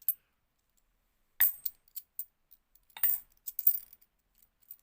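50p coins clinking against each other as they are handled and set down: a run of sharp, metallic clinks starting about a second and a half in, bunched in a few quick clusters.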